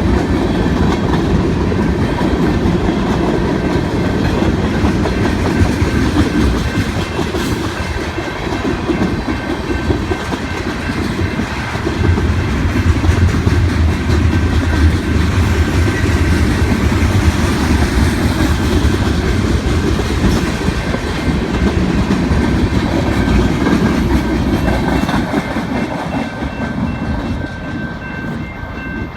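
Freight cars of a manifest freight train rolling past, wheels clicking over the rail joints over a steady heavy rumble. The sound fades over the last few seconds.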